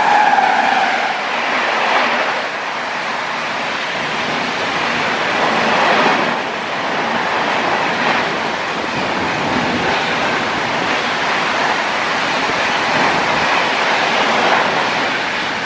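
Express passenger train coaches rushing past at high speed in heavy rain: a steady rushing noise of wheels on rail mixed with the hiss of rain, swelling and easing as the coaches go by. A steady tone fades out in the first second.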